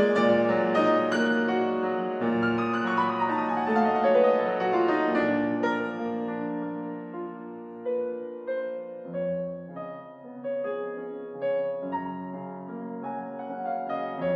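Background piano music: a run of notes stepping downward in the first half, then softer, sparser notes.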